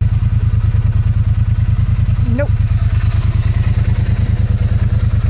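Motorcycle engine idling: a steady, even, rapid low pulse.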